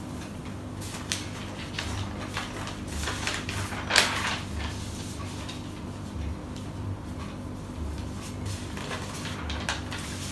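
Sheets of paper rustling as a stack is handled and leafed through, with short scattered rustles and a louder one about four seconds in, over a steady low hum.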